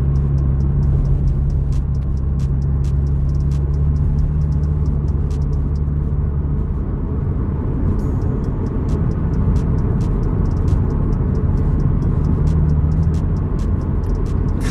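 Steady low rumble of a car on the move, heard from inside the cabin through a phone's microphone.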